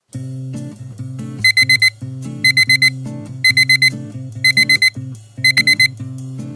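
Alarm clock beeping in groups of four quick high beeps, a group about once a second, starting about one and a half seconds in. Background music with a low melody plays throughout.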